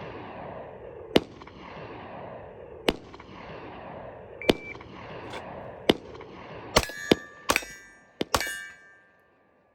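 A shot timer gives a short beep about halfway through. About two seconds later a handgun fires a quick string of three shots, and each hit sets an AR500 steel target plate ringing. Before the beep, single sharp reports come roughly every second and a half over a steady rush of noise.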